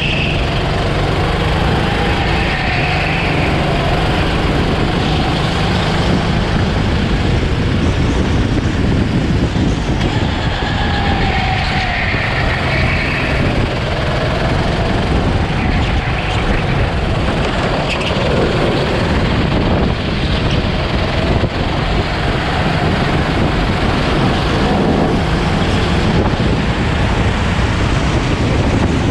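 Onboard sound of a go-kart's engine running at racing speed, its pitch rising and falling as the kart brakes for corners and accelerates out of them, under heavy wind and road noise on the microphone.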